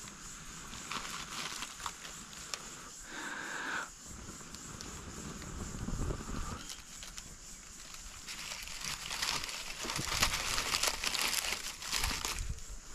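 Dry leaf and grass tinder crinkling and crackling as it is handled and catches flame in a wood stove's firebox, loudest about eight to twelve seconds in.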